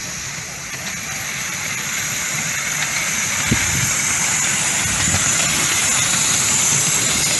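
Miniature steam locomotive No. 1002 The Empress running past close by, growing steadily louder as it nears: a steady hiss over a low rumble from the wheels on the track, with one brief knock about halfway through.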